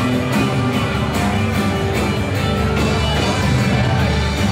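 Live band playing rock and roll: guitar over a steady drum beat.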